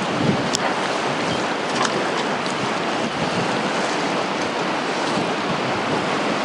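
Steady rushing noise of wind and choppy sea water, with a few brief sharp ticks.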